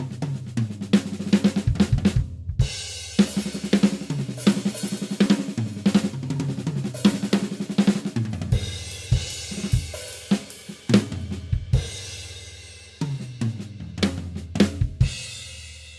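Acoustic drum kit played solo: a groove of kick, snare and hi-hat with cymbal crashes and tom fills, recorded with two overhead mics plus close mics on the snare and kick drum. The playing pauses briefly about three-quarters through, resumes with a fill, and ends with cymbals ringing out.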